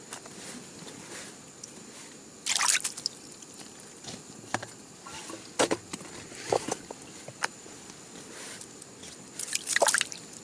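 Water splashing and dripping in a slushy ice-fishing hole, with a few sharp clicks and two short splashy flurries. The louder flurry near the end is a roach thrashing as it is pulled up out of the hole.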